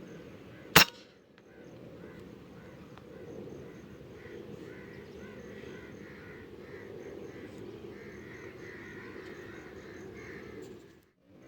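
A single sharp shot from an Artemis P10 PCP airgun about a second in, followed by crows cawing over a steady low background. The sound cuts out abruptly near the end.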